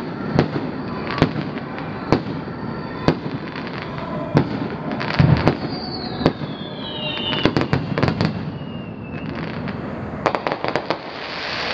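Aerial fireworks shells bursting: a sharp bang about once a second, then clusters of quick crackling pops in the middle and again near the end. A falling whistle runs through the middle.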